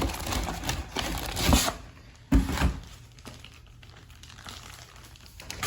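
Packaging and paperwork crinkling and rustling as they are handled and pulled out of the box, with a single knock a little over two seconds in, then quieter.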